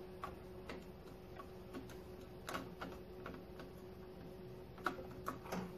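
Faint, scattered clicks and taps of AR-15 handguard halves being handled and pressed into place in the spring-loaded delta ring, with a few sharper clicks near the end.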